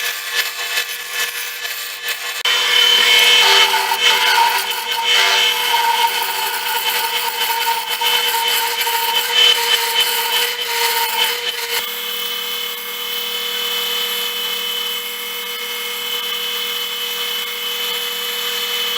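An electric woodworking power tool running and cutting wood, with scraping and rubbing as it works. After a few knocks it starts about two and a half seconds in, and the cutting noise eases about halfway through while the motor keeps running.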